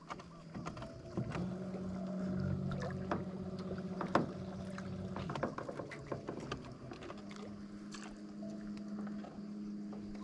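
Handling sounds in a small boat on still water: scattered light knocks and clicks over a steady low hum. The hum cuts out for a couple of seconds about halfway through, then comes back at a slightly higher pitch.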